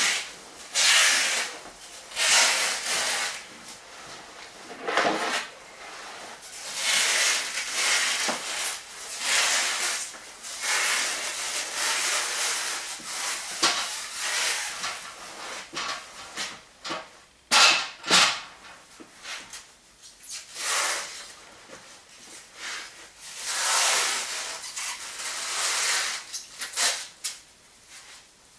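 Clear plastic sheeting over shelving rustling and crinkling in irregular bursts as it is handled and pressed along the shelf edges, with two sharp crackles a little past halfway.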